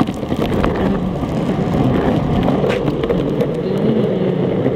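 Longboard wheels rolling over rough concrete, giving a steady, loud rolling noise.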